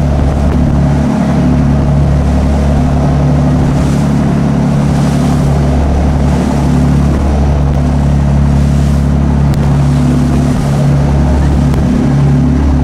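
Motorboat engine running steadily, a low drone, with a rush of wind and water over it.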